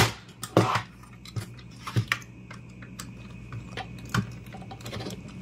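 Scattered sharp clicks and light knocks from a screwdriver and hands working on an oscilloscope's sheet-metal chassis and circuit boards during disassembly.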